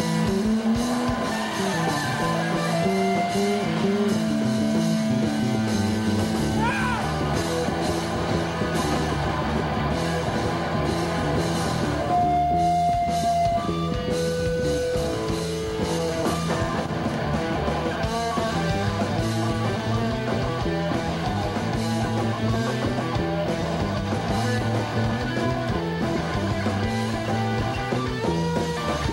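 Rock band playing live: electric guitars over bass and drums, with a short break about halfway where a single held note stands out.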